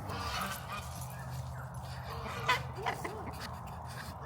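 Domestic turkeys and geese calling in a farmyard: a few short, warbling calls over a steady low background.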